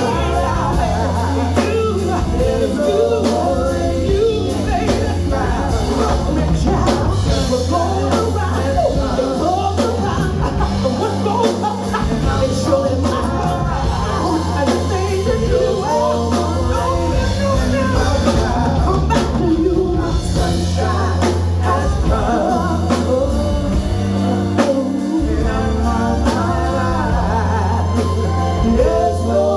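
Live soul band playing, with bass, drums and singing.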